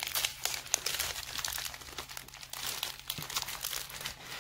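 Small plastic bags of diamond-painting drills crinkling as they are handled, a steady stream of sharp little crackles.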